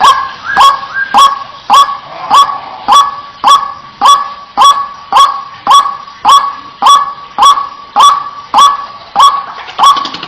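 White-breasted waterhen (ruak-ruak) calling, one loud, clipped note repeated steadily just under twice a second.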